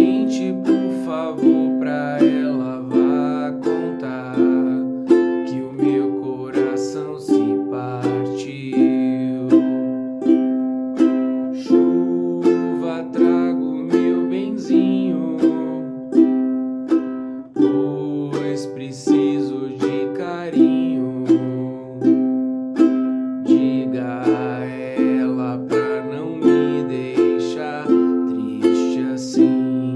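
An acoustic string instrument strummed in a steady rhythm, playing a song's chords.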